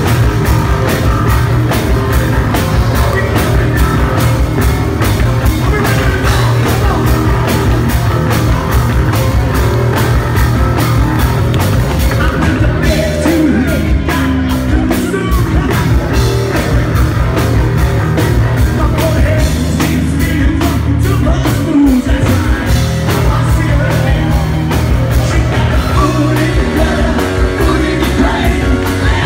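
Live rock band playing loud, with electric guitars, drums and a lead singer.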